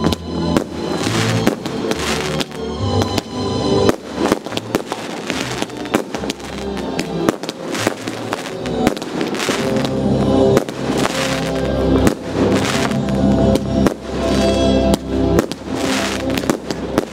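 Fireworks display: aerial shells bursting in quick succession with repeated bangs and crackling, over music playing.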